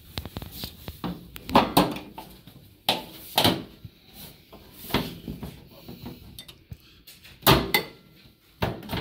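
Irregular metallic knocks and clanks from stainless steel parts of a Rancilio Classe 5 espresso machine being handled during disassembly, with the loudest strikes about one and a half, three and a half and seven and a half seconds in.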